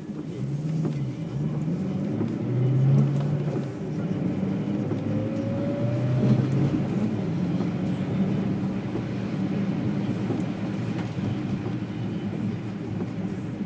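Car cabin noise while driving on a wet road: the engine runs steadily under a continuous hiss of tyres on wet pavement.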